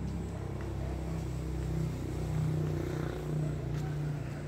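Steady low hum of an engine or motor running, holding a fairly even pitch.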